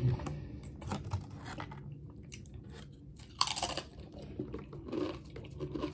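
Close-up mouth sounds of someone finishing eating: soft chewing and lip smacks, with one louder sucking smack of the fingers about three and a half seconds in.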